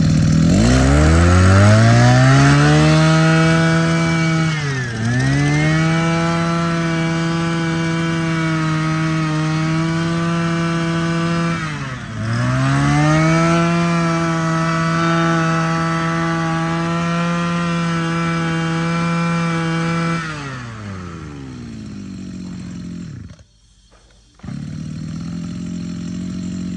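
Makita MM261 26 cc brush cutter engine revved up and held at high throttle, dropping back toward idle and climbing again twice, then winding down and stopping. After about a second of quiet it runs again steadily near the end.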